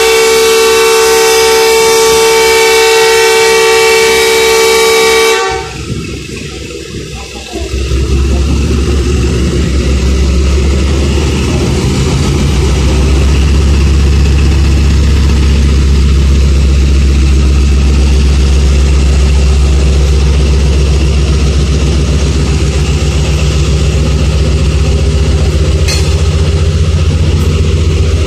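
A diesel locomotive's horn sounds a long, loud blast that cuts off about five seconds in. About two seconds later the locomotive's diesel engine comes in with a steady, low, loud running sound that holds to the end.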